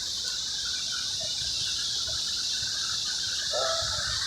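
Outdoor ambience: a steady high hiss with faint bird chirps, low rumbles of wind on the microphone, and a brief distant voice about three and a half seconds in.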